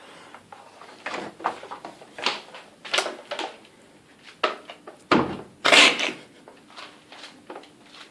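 A dog rummaging in a trash bin: an irregular run of rustles, scrapes and knocks, the loudest and longest crackling rustle about five to six seconds in.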